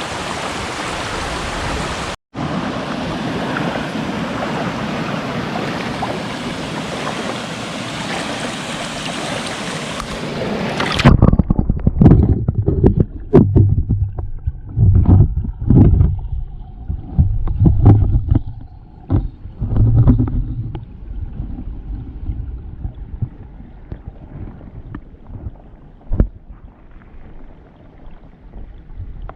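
Small stream rushing down a cascade, a steady loud rush of water. About a third of the way in it cuts off abruptly, and a string of irregular low thumps and rumbles follows, then a few scattered clicks.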